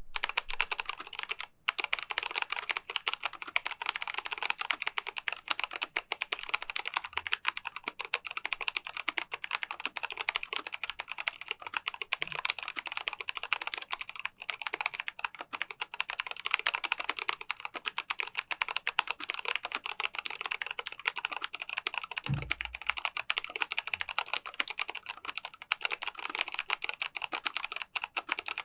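Continuous fast typing on a Micronics WARP WK3 tenkeyless mechanical keyboard with MANIC brown switches: a dense clatter of keystrokes, with a brief pause about one and a half seconds in.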